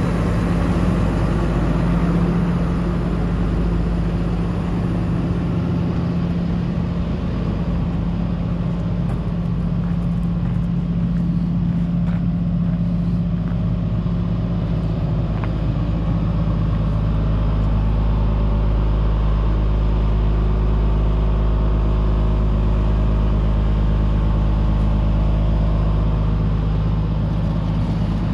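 A 2018 International 4300 box truck's 6.7-litre turbo diesel engine idling steadily.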